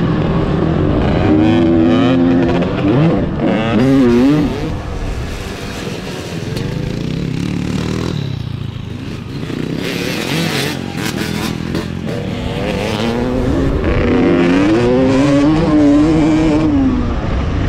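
Honda CR250's single-cylinder two-stroke motocross engine being ridden hard, its revs sweeping up and down repeatedly. The revs drop away for a few seconds near the middle before building again.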